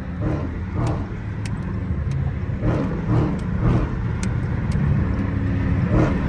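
Dodge Challenger Scat Pack with the 392 V8, heard from inside the cabin while driving at speed: a low engine drone mixed with road noise, growing slightly louder.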